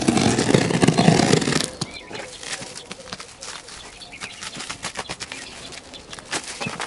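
Black plastic parcel wrapping rustling and crinkling as the packing tape is slit with a cutter and peeled back, densest in the first second and a half, then lighter scattered crackles.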